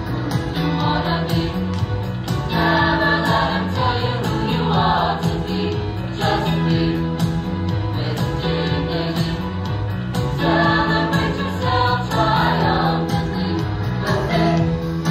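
Mixed-voice high-school show choir singing a song in harmony, its sung chords changing every second or so over steady low notes.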